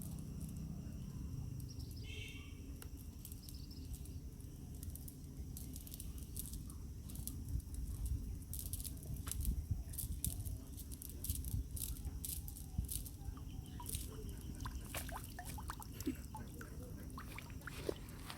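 Outdoor ambience: a steady low rumble with scattered sharp clicks, and a short run of quick bird calls, like a hen's clucking, about two seconds in.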